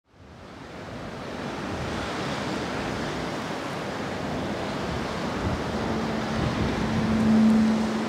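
Sea surf and wind noise fading in from silence. From about six seconds in, a low steady note joins and swells near the end.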